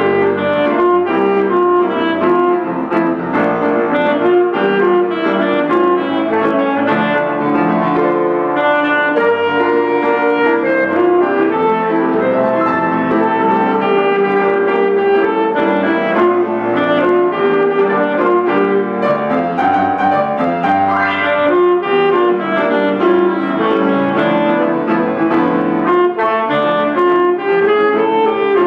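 Alto saxophone playing a melody with piano accompaniment.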